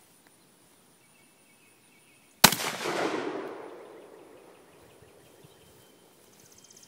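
A single shot from a Saiga 12 semi-automatic 12-gauge shotgun firing a 2¾-inch low-brass field load: one sharp report about two and a half seconds in, followed by an echo that dies away over a second or so.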